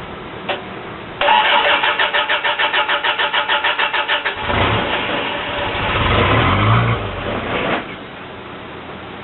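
Starter cranking a Toyota 22R four-cylinder engine fuelled by wood gas, with a fast, even chug. About three seconds in, the engine catches and runs unevenly for about three seconds, then dies. A single click comes just before the cranking.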